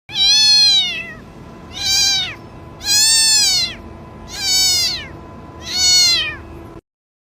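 A cat meowing five times in high-pitched cries for help, each meow rising then falling in pitch, about a second apart. The recording cuts off abruptly near the end.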